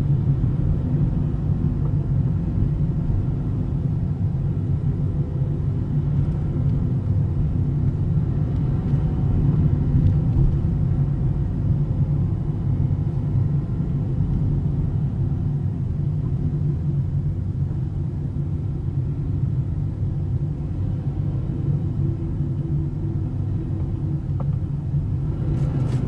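Steady low rumble of a moving car, engine and tyre noise heard from inside the cabin.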